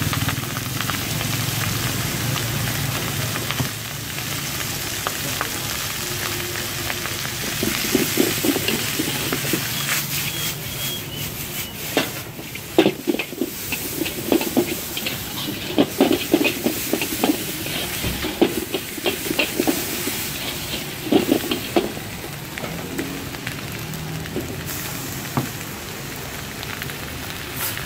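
Rice and leafy greens sizzling in a hot steel wok while a metal spatula scrapes and clanks against the pan in quick stir-frying strokes. The clanking is busiest in the middle stretch.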